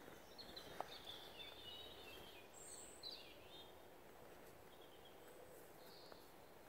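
Quiet woodland ambience with small birds chirping in short, high phrases. A faint rustle of heavy waxed cotton canvas being handled runs through the first few seconds, with a single sharp click about a second in.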